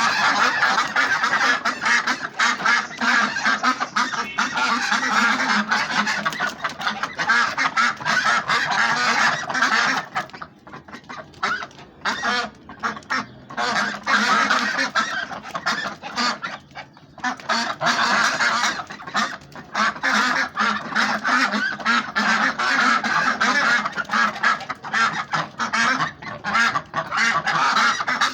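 A flock of ducks quacking nonstop, many calls overlapping, with a few short lulls around the middle.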